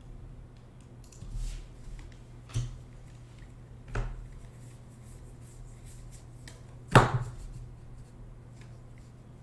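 Trading cards and packs handled on a table: short rustles and a few sharp knocks, the loudest knock about seven seconds in, over a steady low hum.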